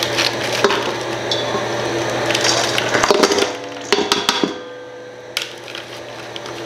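Ninja food processor motor running as it shreds cabbage and carrot for coleslaw, cutting off about three seconds in; then a run of knocks and clatter.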